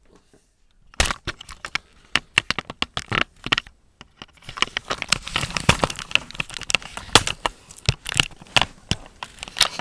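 Rapid irregular crackling and rustling clicks that start suddenly about a second in and grow denser about halfway through.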